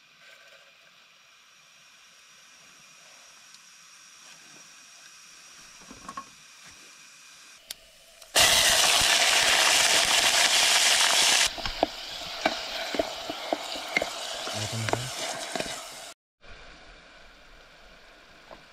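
Grated onion going into hot oil in a pan: after a faint hiss, a loud burst of sizzling starts about eight seconds in. About three seconds later it settles into a steady frying sizzle with sharp clicks of a spoon stirring against the pan. It cuts off abruptly about sixteen seconds in.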